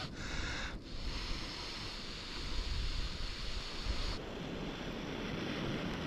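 Steady breath blowing into a dry grass tinder bundle around a smouldering ember, a breathy, wind-like hiss, as the ember is coaxed toward flame.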